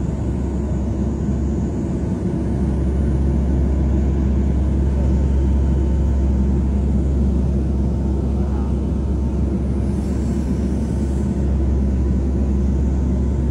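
Steady aircraft cabin drone from the engines and rushing air, heard from inside the plane: a deep rumble with a faint steady hum above it, growing a little louder about two seconds in.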